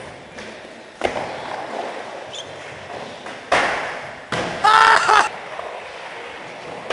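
Skateboard on plywood ramps: wheels rolling, with sharp board knocks about a second in and twice more a little past the middle. The loudest sound is a short wavering yell just after the last knock.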